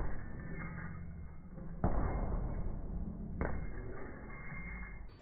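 Gloved punches landing on a heavy punching bag: three thuds, each a second and a half or more apart, with a low hum between them.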